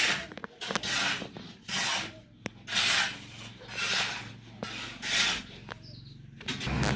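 Shovel scraping and scooping sand in strokes about a second apart, six in all, with small gritty clicks between them. A low steady rumble comes in near the end.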